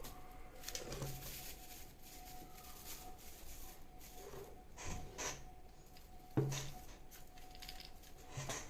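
A few separate clicks and knocks of small plastic parts being handled, the loudest about six seconds in, as a metal-detector pinpointer is put back together.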